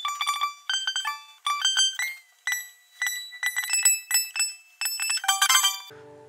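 Out-of-tune acoustic guitar being tuned: single strings plucked over and over, a few times a second, their pitch shifting as the tuning pegs are turned. Near the end comes a fast run of strokes across the strings.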